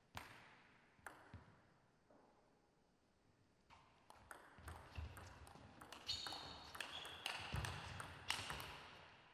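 Table tennis ball clicking on the table and off the bats: two single clicks near the start, then from about four seconds in a quick rally of sharp ball hits with a few high squeaks and low thuds among them.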